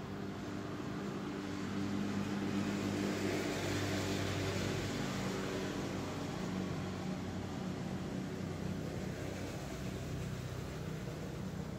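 A low mechanical hum with a steady pitched drone, like a running motor. It grows louder about two seconds in and eases off again after a few seconds.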